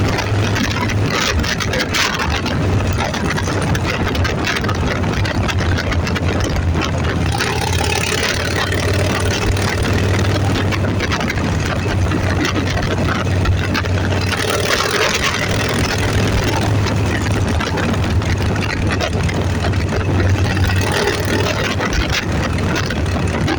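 Vehicle engine running steadily with a low, even hum, under a constant hiss of wind and road noise while on the move.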